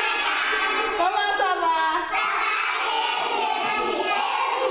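A large group of young children singing together in chorus, their high voices running on without a break.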